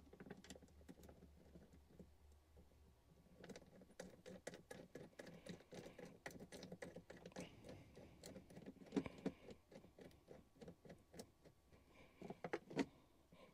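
Faint, irregular light clicking and ticking of a metal bolt being turned by hand into a battery terminal post, through a cable lug and washers. A few sharper clicks come about nine seconds in and near the end.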